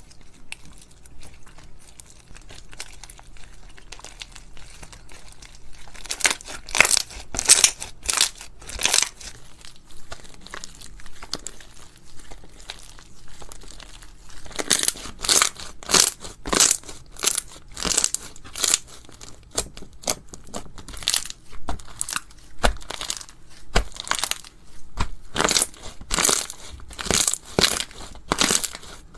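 Crunchy slime being squished, crackling and popping. It is soft at first, then comes in loud bursts of crackles about six seconds in and again steadily from about fifteen seconds on.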